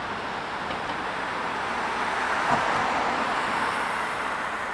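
A car passing close by on a road: its tyre and engine noise swells to a peak a little past halfway, then fades as it goes away.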